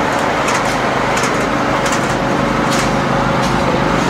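An engine running steadily at idle, a constant hum with a few faint short ticks above it.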